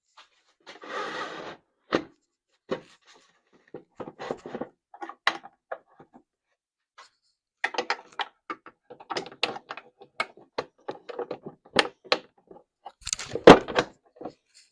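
Hand-handling noises on a switched-off jointer-planer: a short scraping rustle about a second in, then a string of irregular clicks and knocks, the loudest near the end.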